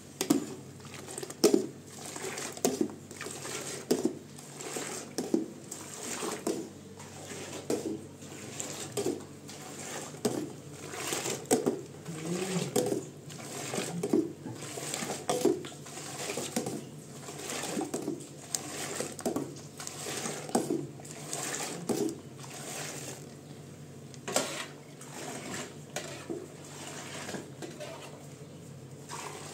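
Metal bowl scooping milk from one aluminium pot and pouring it into another: repeated clinks and scrapes of metal on metal with splashing, about one every second, thinning out after about 22 seconds.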